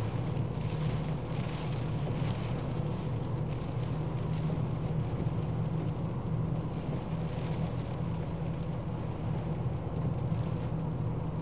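Steady in-cabin driving noise of a small Ford Fiesta hatchback: a low engine and road hum with tyre hiss on wet road.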